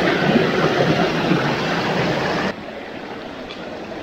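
A small mountain stream rushing over rocks in a loud, steady rush. About two and a half seconds in it drops suddenly to a quieter, softer flow.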